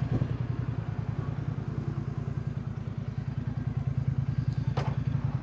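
Royal Enfield Bear 650's 648 cc parallel-twin engine idling steadily with its silencer removed, giving a raw open exhaust note. A single sharp click is heard near the end.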